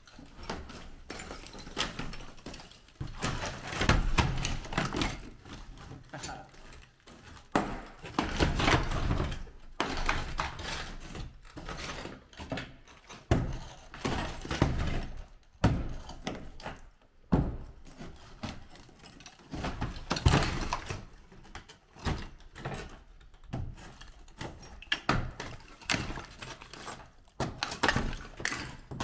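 Irregular knocks, thuds and clatter of old ceramic bathroom wall tiles being broken off and falling during demolition, a few seconds apart and in loose clusters.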